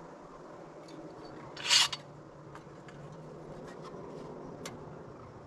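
A short, loud hiss a little under two seconds in, with faint rubbing and a few light clicks around it, as caulk is run and smoothed along wooden window trim.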